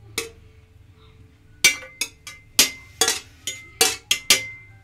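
Metal cookware clinking as rice is scraped and knocked out of a wok (kadai) into an aluminium pot. There is one clink just after the start, a short pause, then a run of about eight sharp clinks from about a second and a half in, some with a brief metallic ring.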